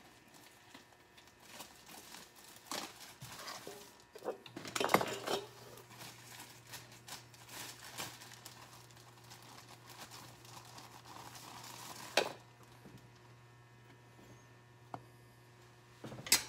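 Kitchen handling sounds: a plastic bread bag rustling and dishes clinking as bread slices are taken out and laid in a pan of egg mixture, with a few sharp clicks. A steady low hum comes in about a third of the way through.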